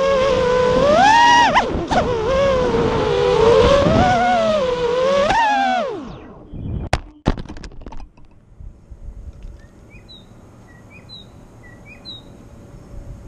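FPV quadcopter's motors whining, their pitch rising and falling with throttle, then winding down about six seconds in. A few sharp knocks follow as the quad crashes, then a quiet stretch with a few faint chirps.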